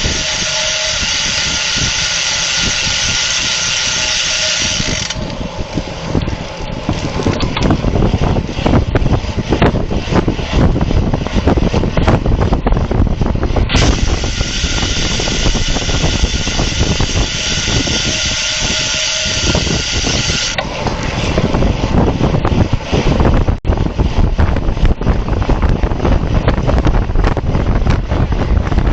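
Wind rushing over a camera mounted on a road bike ridden at race speed, with the rear hub's freewheel ratchet clicking. Twice, for several seconds each time, a steady high hiss takes over.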